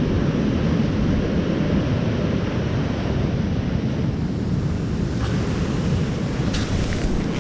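Wind buffeting the camera's microphone: a steady low rumble with hiss, with a few sharp clicks near the end as a hand handles the camera.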